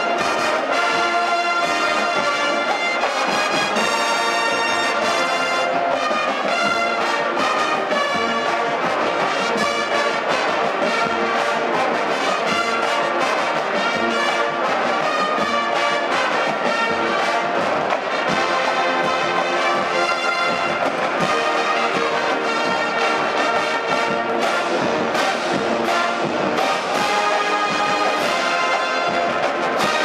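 Marching band playing a full, steady brass-led piece, with drum hits punctuating it.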